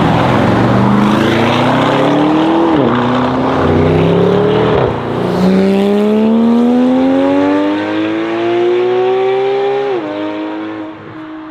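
Audi ABT RSQ8-R's 4.0-litre twin-turbo V8 accelerating hard through the gears. The loud engine note rises, drops sharply at an upshift about two and a half seconds in and again at about four and a half seconds, then rises in one long pull. It falls back to a steadier, lower note near the end.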